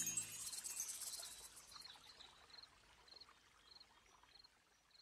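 The song's last chord dies away, then faint cricket chirps repeat about every half-second over a soft hiss, fading out.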